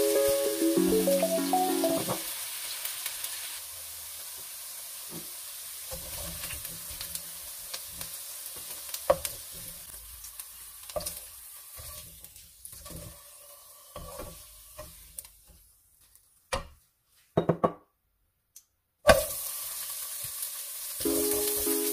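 Potato and carrot chunks sizzling as they fry in olive oil in a nonstick wok. A spoon knocks and scrapes against the pan as the pieces are turned.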